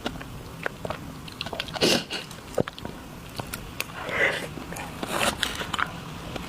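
Close-miked eating of desserts: chewing with many small mouth clicks, and louder bites about two seconds in and again near five seconds.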